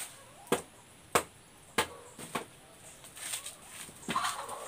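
Dried corn being beaten by hand to knock the kernels off the cobs: five sharp knocks at an even pace, about one every half second, then a softer clatter near the end.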